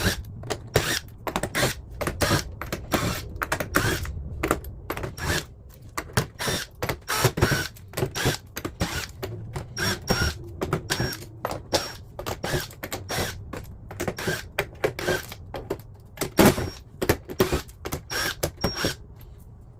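Screws being taken out of the underside of a Pioneer DDJ-1000SRT DJ controller's plastic case: many irregular clicks, taps and rattles of the screwdriver and the loosened screws and casing.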